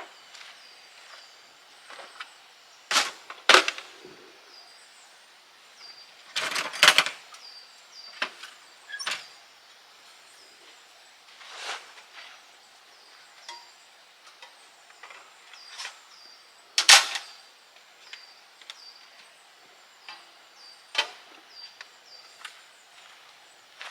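Scattered knocks and clicks at irregular intervals, the loudest about three seconds in, again around seven seconds and near seventeen seconds. Faint short high chirps repeat in the background.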